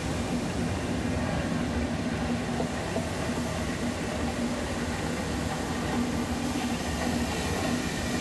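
Steady low rumble and hum of a DisneySea Transit Steamer Line boat's engine running at cruising speed.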